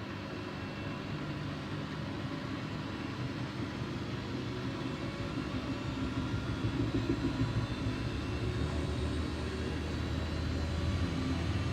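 Siemens Siwamat iQ 716 washing machine running: a steady motor hum over a low drum rumble, which swells and turns more uneven about six seconds in.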